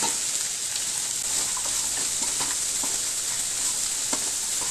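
Green peas and spices frying in oil in a non-stick pan: a steady sizzle, with a few light knocks of a wooden spatula as they are stirred.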